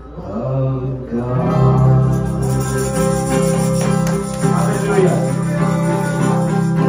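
Live worship band playing without vocals: a strummed acoustic guitar over sustained low electric notes, fading in after a short lull at the start.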